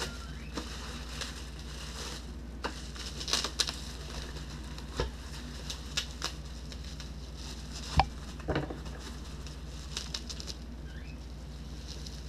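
Things being handled and moved about: scattered light clicks, knocks and rustling, with a sharper knock about five seconds in and the loudest about eight seconds in.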